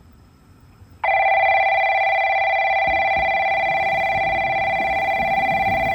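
Station platform train-approach alarm sounding a steady two-pitch electric buzzer tone. It starts about a second in and lasts about five seconds, warning that a train is about to arrive.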